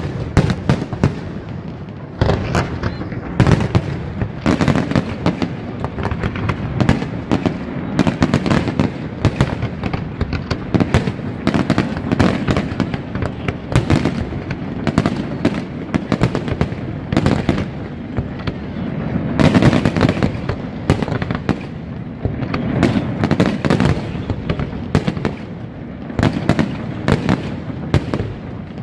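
Large aerial fireworks display: a dense, continuous barrage of bangs and crackling bursts, many shells a second.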